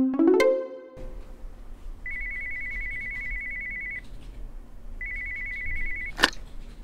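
A brief tonal sting opens, then a telephone rings twice, each ring a steady warbling tone about two seconds long, and a sharp click follows as the handset is picked up.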